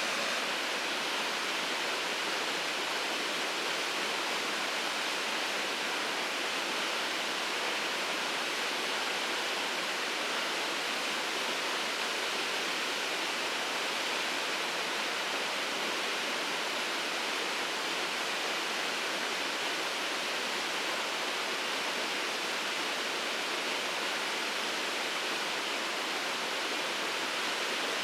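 Shirogane Falls waterfall: a steady, unbroken rush of falling water.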